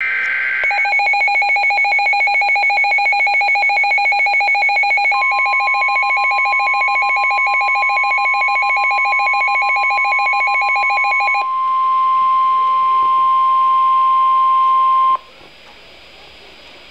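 NOAA Weather Radio alert for a test tornado warning. A brief data burst at the start gives way to a weather radio receiver's rapid pulsing alarm beep. About five seconds in, the steady single-pitch warning alarm tone joins it. The pulsing beep stops about eleven seconds in, and the alarm tone cuts off suddenly about fifteen seconds in, leaving faint radio hiss.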